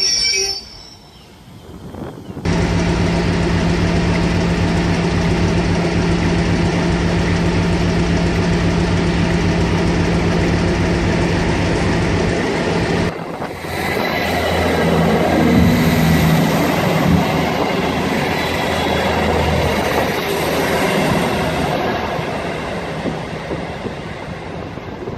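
Loud train passing through the station, with a steady low hum over the running noise. The sound breaks off suddenly about halfway through, and more train noise follows that swells and fades with shifting low tones.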